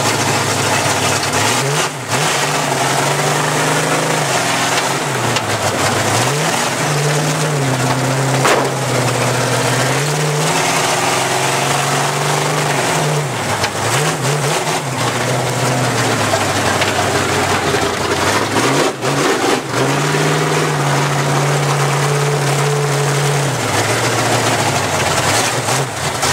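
Chevy 4x4 mud race truck's engine heard from inside the cab while driving: revved up and held, then dropping back, about five times in a row, over constant loud drive noise.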